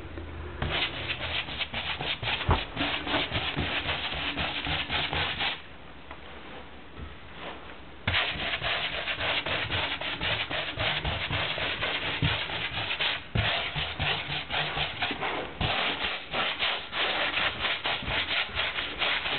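Glaze being scrubbed onto a textured wall: rapid, scratchy rubbing strokes over the rough surface, pausing for a couple of seconds about a third of the way through, then going on.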